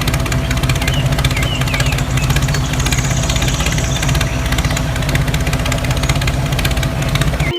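A small electric motor running steadily with a fast buzzing rattle and a constant hum.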